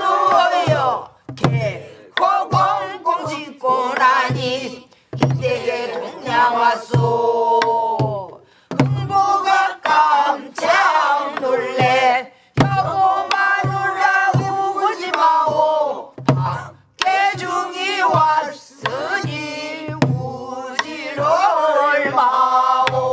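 Voices singing a pansori-style Korean song in unison with long, bending held notes, kept in rhythm by stick strokes on buk barrel drums.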